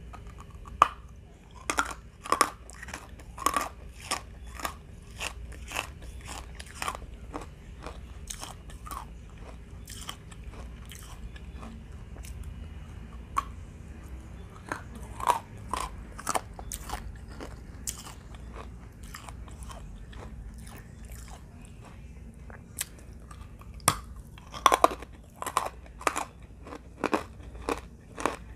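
A person biting and chewing dry, hard chunks of edible clay close to the microphone: irregular crisp crunches, about one or two a second, coming in quicker runs near the start and near the end.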